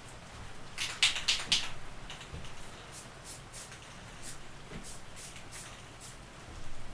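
Aerosol spray paint can in use: a quick cluster of short hissing bursts about a second in, then scattered shorter bursts.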